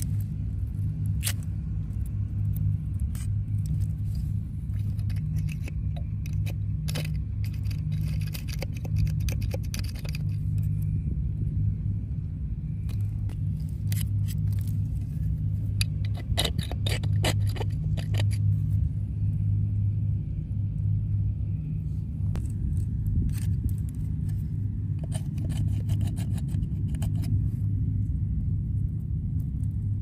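A small metal oyster pick tapping and scraping at oyster shells on a rock, in clusters of sharp clicks and scrapes as shells are pried loose, over a steady low rumble.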